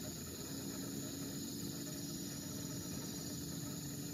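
Night-time crickets chirping steadily in the background, with a faint low steady hum underneath.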